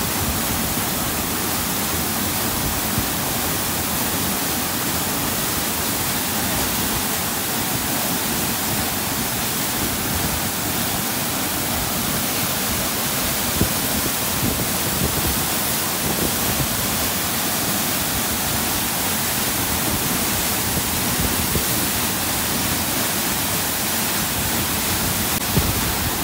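Fast-flowing mountain stream water, a steady rushing hiss that never lets up.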